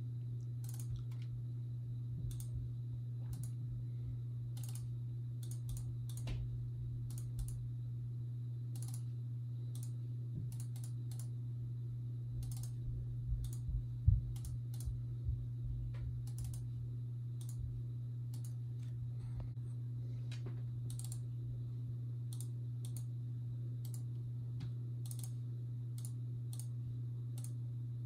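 Irregular clicking of a computer mouse over a steady low hum, with a few low thumps halfway through, one much louder than the rest.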